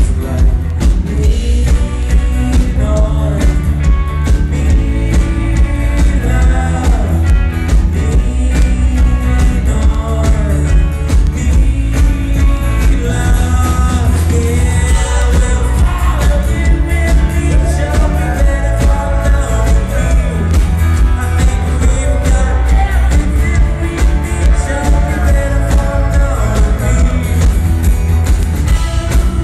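Live rock band playing a song, with a lead vocal line sung over a loud, bass-heavy band.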